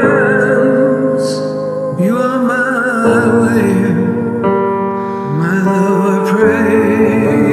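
Music: a male and female vocal duet, sung notes held with vibrato over sustained instrumental accompaniment.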